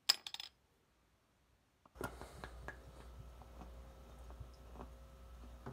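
Bud Light beer poured from a bottle into a plastic bowl: a few quick clicks at the start, then a faint, steady pour with scattered small ticks.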